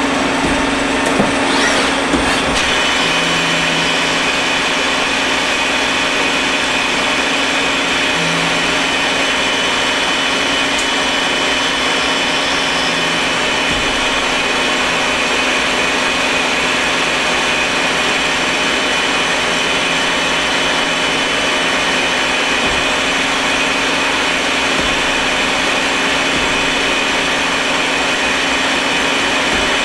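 Citizen A32VII Swiss-type CNC lathe machining a small metal part: a steady mechanical whir with cutting noise. There are two short knocks in the first two seconds, and from about two and a half seconds in a steady high whine as a rotating milling tool cuts the part.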